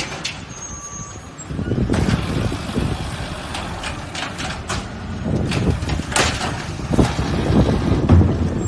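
Garbage truck running with a heavy low rumble that gets louder about a second and a half in, with several sharp knocks or hisses.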